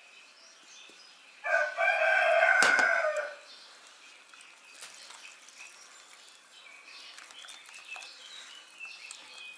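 A whisk-spoon stirring flour into batter in a ceramic bowl, with faint scraping and light clicks. About a second and a half in, a loud pitched call cuts in and lasts about two seconds.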